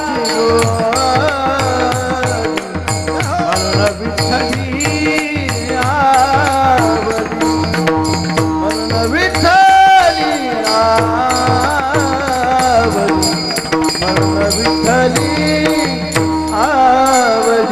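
Marathi varkari devotional singing: a voice draws out long gliding notes of an abhang over a steady drone, with a drum and hand cymbals keeping a regular beat.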